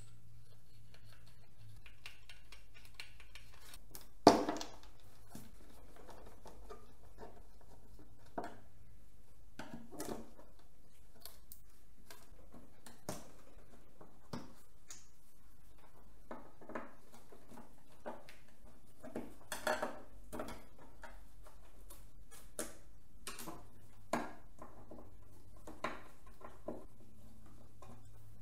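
Hand tools and metal hardware clinking and knocking as a motorcycle Tour-Pak luggage box is taken apart, with one loud knock about four seconds in, over a steady low hum.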